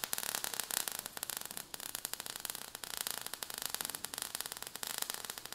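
Crackling fire sound effect: many small irregular crackles over a steady hiss.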